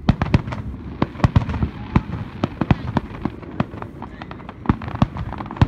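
Fireworks finale: aerial shells bursting in a rapid run of sharp bangs and crackles, several a second, thinning briefly about four seconds in before more bangs near the end.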